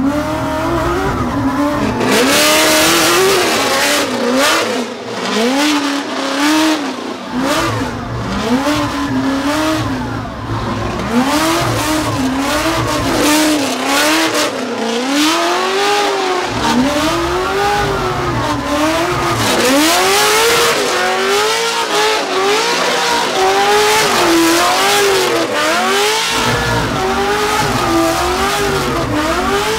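Mazda RX-7 drift car's 5.7-litre Chevy LS V8, with individual throttle bodies and custom equal-length headers, revving up and down over and over, about once a second, as the car drifts in circles. Tyres squeal from about two seconds in.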